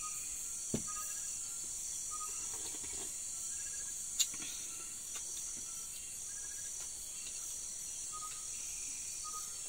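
Steady high-pitched chorus of night insects, crickets among them, with short faint chirps here and there. Two sharp clicks stand out, about a second in and about four seconds in.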